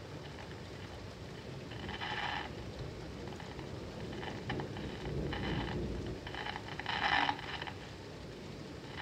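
Radio hissing and crackling with bursts of static set off by lightning, the strongest about two seconds in and again near seven seconds, with smaller crackles between. Steady rain hiss underneath.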